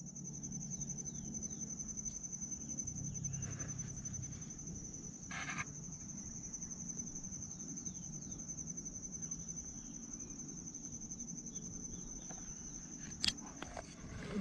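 Reed-marsh ambience: a steady high pulsing insect trill with many short falling bird chirps over it and a low hum underneath. A single sharp click comes near the end.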